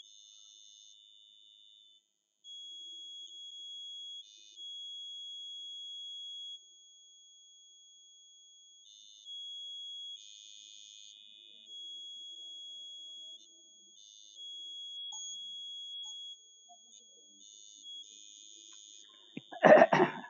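A thin, steady, high-pitched electronic tone that cuts in and out at irregular intervals, several seconds on and a few off. Near the end a short, louder noise comes in just before speech.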